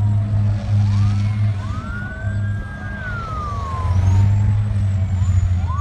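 Emergency vehicle siren wailing, slowly rising, holding and falling in pitch, with a second rise starting near the end, over a steady low hum.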